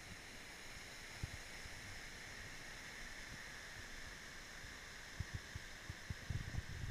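Small waves washing onto a sandy shore, a steady soft hiss of surf. Low thumps on the microphone grow more frequent near the end.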